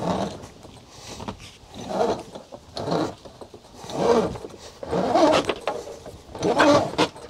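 A man grunting with effort, repeated short strained grunts about a second apart, loudest near the end, as he heaves on a rope through a pulley to haul a scooter up a ramp.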